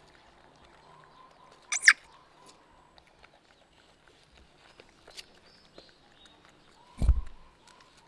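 Baby monkeys eating guava: soft crunching, rustling and small clicks, with one short sharp sound about two seconds in and a low thump about seven seconds in.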